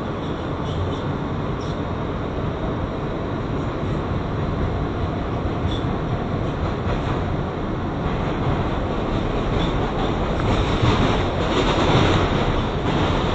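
R160 subway car with Siemens propulsion, heard from inside the car while running: a steady rumble of wheels on the rails with a few faint clicks. It grows louder about ten seconds in.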